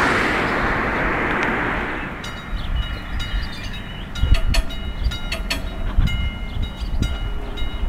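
Level-crossing warning bell on AŽD 71 signals, a classic electric bell, ringing with a steady metallic tone and repeated strikes from about two seconds in, meaning the crossing's warning is active. It follows a loud rushing noise that fades away over the first two seconds.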